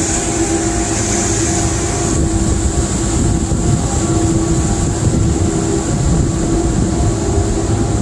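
A tugboat's diesel engines running steadily under way, heard from the tug's own deck: a constant low drone with a steady hum over it.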